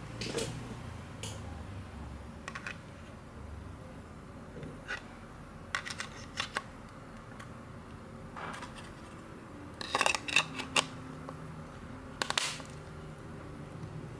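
Scattered small clicks and light knocks of a pocket Wi-Fi modem and its packaging being handled. The loudest cluster of sharp clicks comes about ten seconds in.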